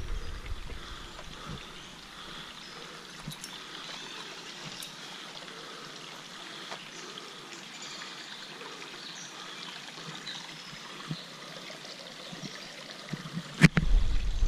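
Small rocky woodland creek trickling over stones, a steady, even rush of water. Near the end a sharp knock and a burst of low wind rumble on the microphone.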